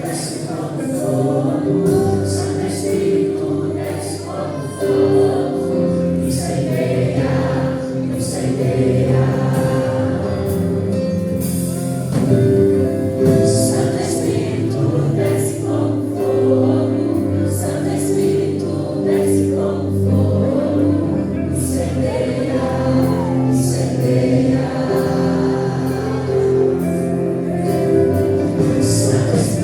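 A group of voices singing a gospel worship song together over a backing band, sustained and continuous.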